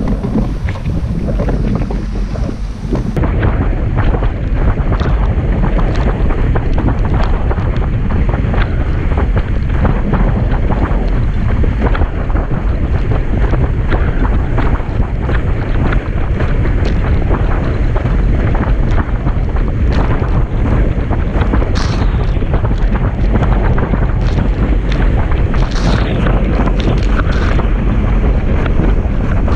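Strong wind buffeting the action camera's microphone over the rush of water under a Starboard Isonic 117 slalom windsurf board planing fast through chop, with frequent short knocks and splashes as the board hits the waves.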